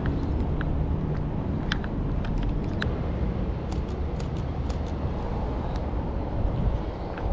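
Street traffic noise: a steady low rumble of road traffic, with scattered short sharp clicks.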